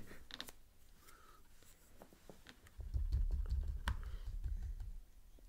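Scattered light clicks and taps of paintbrushes and paint tubes being handled and worked on a cluttered tabletop. About three seconds in, a couple of seconds of low bumping from the table itself.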